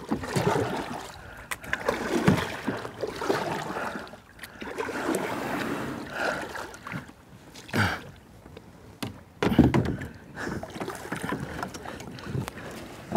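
Double-bladed kayak paddle strokes splashing in shallow river water as a kayak is paddled in to a sandy bank, with a few louder splashes and knocks in the second half as it lands.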